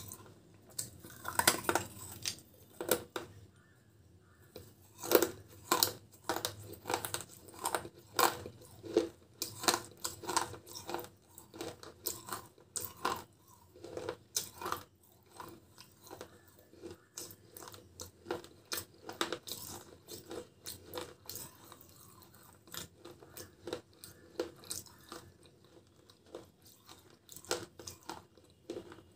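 Close-miked crunching of a small terracotta clay pot being bitten and chewed: many sharp, crisp cracks as pieces break off between the teeth and are ground up, loudest and most frequent in the first half.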